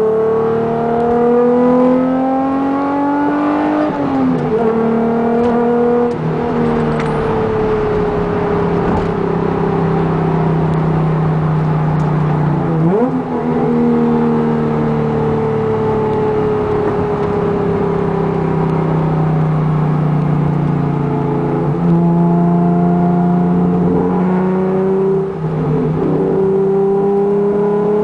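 Honda NSX NA1's 3.0-litre V6 VTEC engine through a Taitec GT009 exhaust, driven through the gears: the exhaust note climbs in pitch under acceleration, drops sharply at gear changes about 4, 13 and 25 seconds in, and sinks slowly as it eases off in the middle before climbing again near the end.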